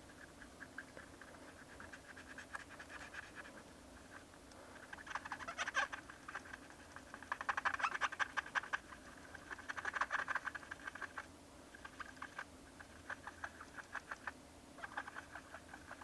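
Cotton swab scrubbing over the bare key site of a MacBook Pro butterfly keyboard, cleaning the switch area. It makes a fast, fine scratching in bursts of a second or two, loudest around the middle.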